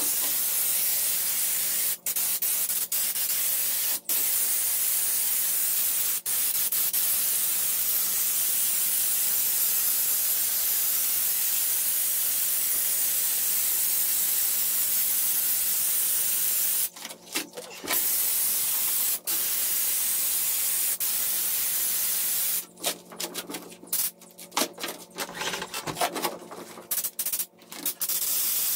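Compressed-air applicator gun spraying Raptor bed liner: a loud, steady hiss that drops out for a moment several times as the trigger is released. Near the end it sputters on and off in short spurts.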